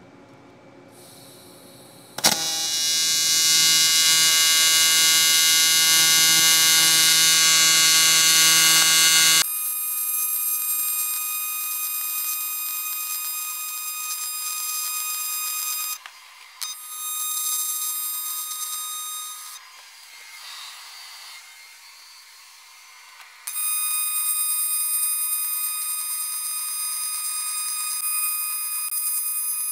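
AC TIG welding arc on aluminum, a steady electric buzz that strikes with a sharp click about two seconds in. The buzz drops in level partway through, breaks off briefly, stops for a few seconds, then starts again and cuts off near the end.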